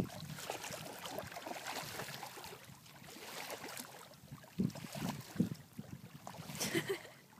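Small children wading through shallow water, their legs making soft, uneven splashes over a steady hiss of wind and water.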